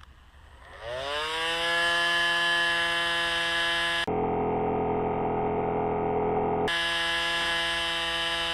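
A Dremel rotary tool spinning a CD on its mandrel: it winds up with a quickly rising whine about a second in, then runs at a steady high whine. The tone changes abruptly twice.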